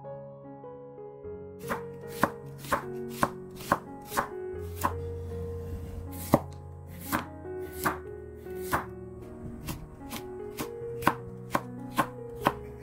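Chef's knife slicing onion and then carrot into thin strips on a wooden cutting board: sharp knocks of the blade on the board, about two a second, starting a second or so in.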